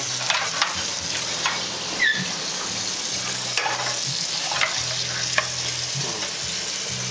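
Hot oil sizzling steadily in a pan, with scattered sharp crackles and pops.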